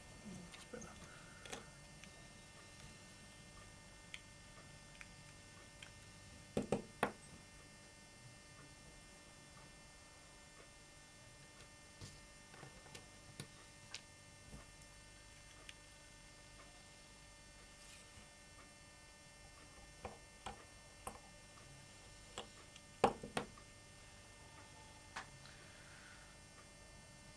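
Steady low electrical hum with scattered small clicks and taps from handling a precision screwdriver and the parts of a 2nd-generation iPod Nano on a tabletop. There are two louder clusters of clicks, about seven seconds in and about twenty-three seconds in.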